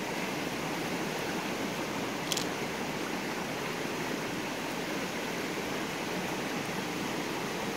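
Steady rush of a rocky river running through riffles, with one brief click a couple of seconds in.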